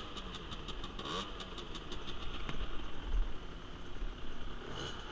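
50cc motorbike engine idling steadily, with a light ticking in the first couple of seconds.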